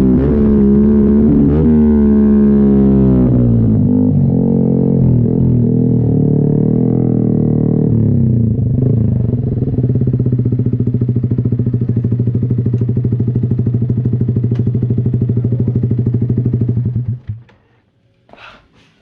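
Motorcycle with an Austin Racing aftermarket exhaust, revved up and down for the first several seconds, then settling into a steady idle, and cut off shortly before the end.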